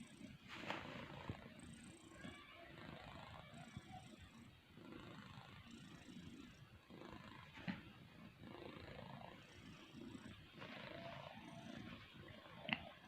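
An animal snoring softly in its sleep: rasping breaths that swell and fade every two to three seconds. Two short clicks cut in, the louder one near the end.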